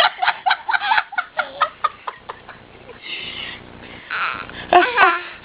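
Laughter in quick, short bursts. A couple of breathy puffs follow, then a louder voiced outburst near the end.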